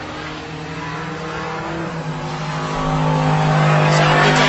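Race car engine running at a steady pitch, with noise swelling louder over the last second and a half.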